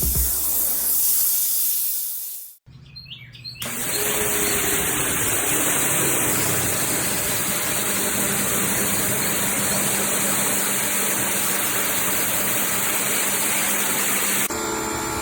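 Electric pressure washer spraying: a steady, loud hiss of the high-pressure water jet with a low motor hum under it, cut off briefly about two and a half seconds in, where a few bird chirps are heard before the spray starts again.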